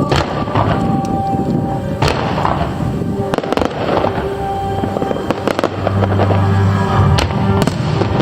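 Aerial fireworks shells bursting: about half a dozen sharp bangs, a second or two apart, over music playing along with the show.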